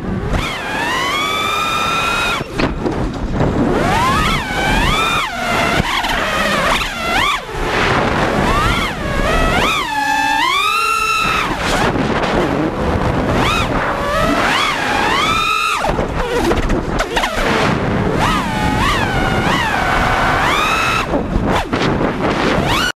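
FPV quadcopter's brushless motors and propellers whining, the pitch swooping up and down again and again as the throttle is punched and chopped.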